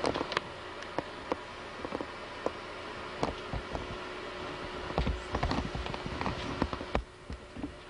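Scattered light taps and knocks over a steady low hum, with a quick cluster of taps about five seconds in.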